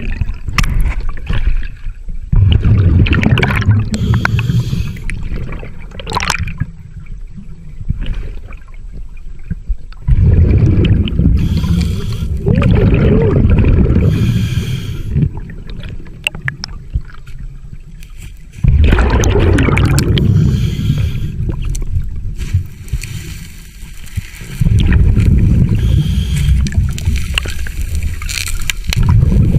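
Scuba diver breathing through a regulator underwater: four long exhalations of bubbles, each lasting several seconds, with quieter inhales between them.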